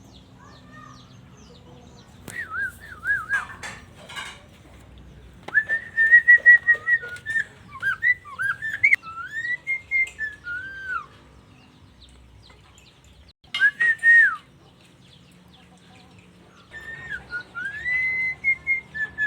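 Pet jalak starling whistling in four short phrases of clear, warbling notes that rise and fall, the longest a held note breaking into quick up-and-down slurs a little after five seconds in.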